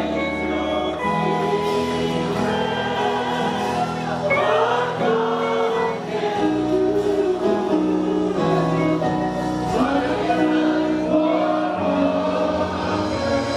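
Gospel worship music: singing over held chords.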